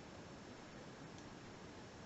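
Quiet steady hiss with one faint click a little over a second in: a lock pick working the pin stack of a five-pin padlock under light tension.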